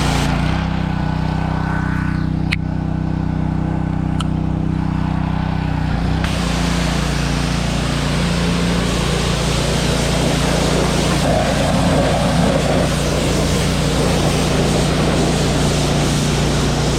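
Honda pressure washer's small gas engine running steadily under load; about six seconds in, a loud, even hiss of high-pressure water spray joins it and carries on, the replaced pump delivering pressure.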